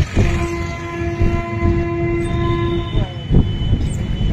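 A horn sounds one long steady note for nearly three seconds and ends with a brief downward slide. A loud thump follows, over a steady low traffic rumble.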